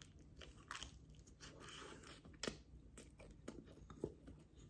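A person chewing a flaky, cream-filled lobster tail pastry, with several faint crisp crunches of the crust.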